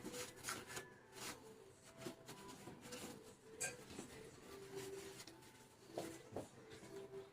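Faint rubbing and scraping with scattered small clicks and knocks as pump parts are handled and cleaned on the bench.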